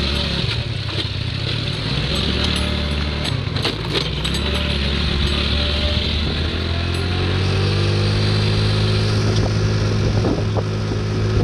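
A 50cc GY6 scooter's single-cylinder four-stroke engine running steadily while the scooter is ridden, its note rising in the second half as it speeds up. It is a test ride on a freshly rebuilt CVT transmission with a new clutch, variator and belt.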